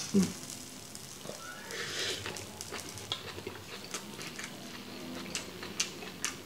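A person chewing a big mouthful of bibimbap close to the microphone: wet mouth smacking and many sharp little clicks, with a short breathy sound about two seconds in.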